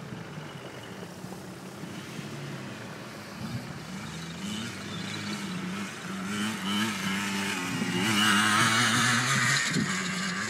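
Engine of an off-road vehicle driven across rough grass, its revs rising and falling, getting louder about eight seconds in.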